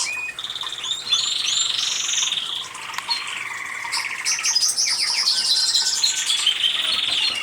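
Canary singing: long, rapid trills and rolls mixed with quick upward-sweeping notes, one run of song after another.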